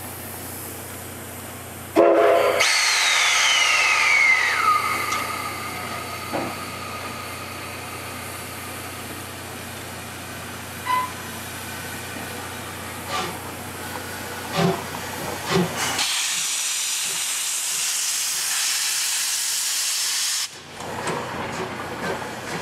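JNR Class C58 steam locomotive: a short, loud whistle blast about two seconds in, followed by steam hissing and a few metallic knocks. Later comes a loud, steady hiss of steam blowing off for about four seconds, which cuts off suddenly.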